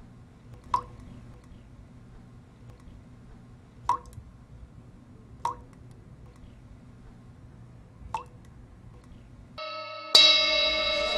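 Four single sharp drip-like clicks, a few seconds apart, over a low steady hiss. Near the end music comes in: a held chord with a bright struck high note, louder than anything before it.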